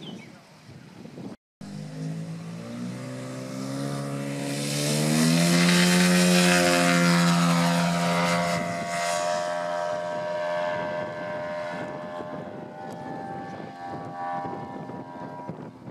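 Large-scale RC Bellanca model's 156 cc engine and propeller at high power as it takes off and climbs away. The engine note rises in pitch, is loudest about five to eight seconds in as the plane passes, then drops a little in pitch and fades.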